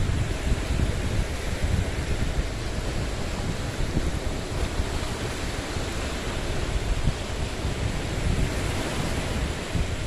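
Lake Huron waves washing and breaking among rocks at the shoreline, a steady wash of water noise, with wind gusting on the microphone in a low, uneven rumble.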